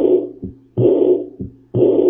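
Recorded heart sounds through a stethoscope, about one beat a second: each beat a thump running straight into a long whooshing murmur of about half a second, then a short second thump.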